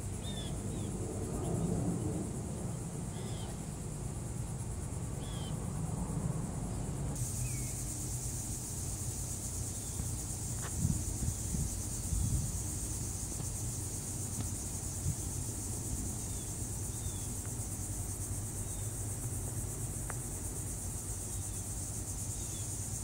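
Outdoor ambience of a steady, high insect chorus that grows louder about seven seconds in, with scattered short bird chirps over a constant low rumble.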